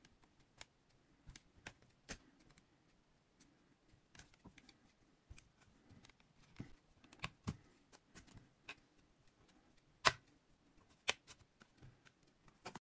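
Plastic clips of a tablet's back cover clicking and snapping at irregular intervals as a plastic pry tool works around the seam to open the case. Two louder snaps come near the end.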